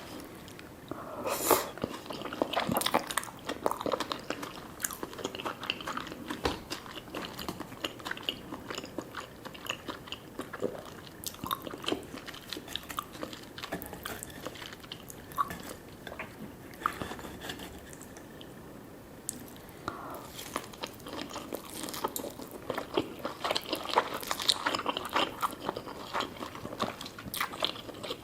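Close-miked eating sounds: someone biting and chewing food, with many small clicks. Busier bursts come near the start and again in the last third.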